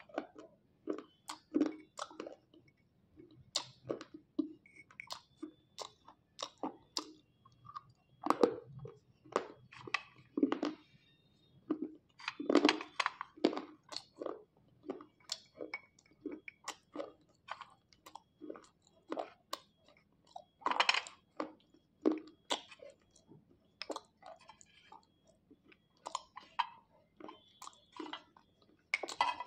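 Slate pencils coated in a paste of crushed clay and water being bitten and chewed: a long run of sharp, dry crunches at an uneven pace of one to three a second.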